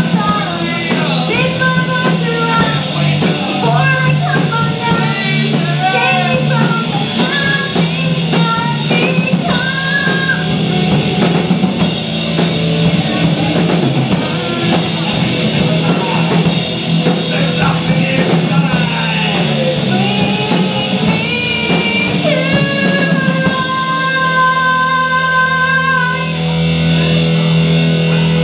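Live rock band playing: a woman singing lead over electric and acoustic guitars, bass and a drum kit with steady cymbal hits. Near the end a long note is held.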